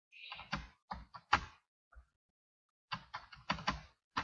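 Typing on a computer keyboard: separate key clicks in small bursts, a handful in the first second and a half, then a quick run of keystrokes near the end.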